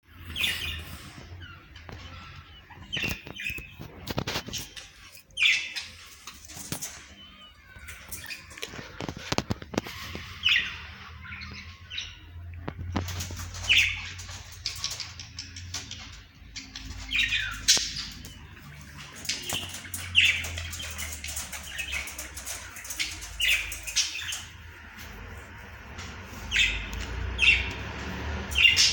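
Budgerigars calling: short, sharp chirps and squawks every second or two, with a run of clicks and rattles in the first part, such as wings or feet on a cage.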